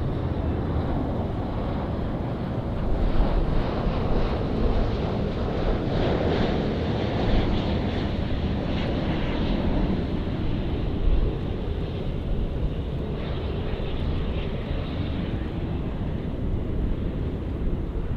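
Jet airliner engines: a steady rumble that swells in the middle and then eases off.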